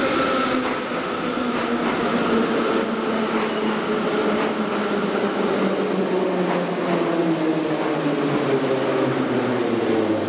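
Soviet-built 81-717/714.5 'Nomernoy' metro train pulling into a station. Its traction motors whine in several tones that fall steadily in pitch as the train slows, with occasional clicks from the running gear.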